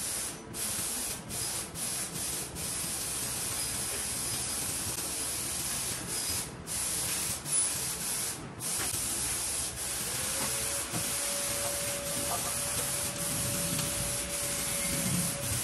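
Steady hiss, broken by brief dropouts several times in the first nine seconds. A faint steady tone joins about ten seconds in.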